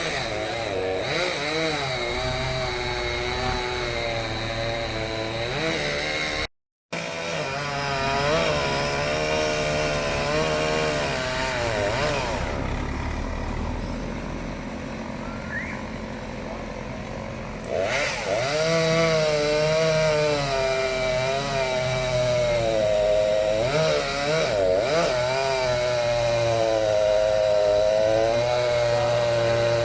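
Chainsaw running and cutting wood, its pitch rising and falling as it revs and slows in the cut. There is a brief dropout about a quarter of the way in. It runs softer for several seconds in the middle, then comes back loud.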